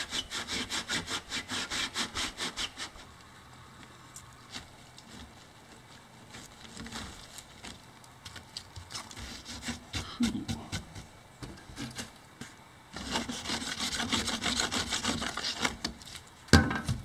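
Hand sawing through a freshly made, still-soft aggregate block: quick rasping back-and-forth strokes for about three seconds, then quieter scraping, another stretch of sawing near the end, and one sharp knock just before the end.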